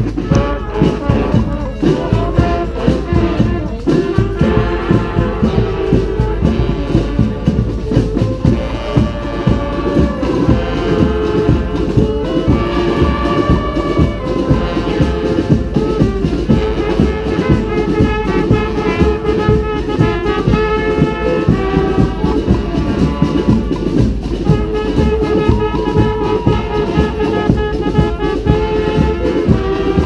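Street brass band of trumpets, trombones and saxophones playing a cumbia live, with a steady pulsing beat.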